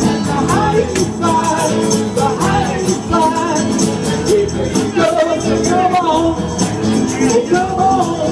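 Music with a fast, steady percussion beat under a melody that rises and falls.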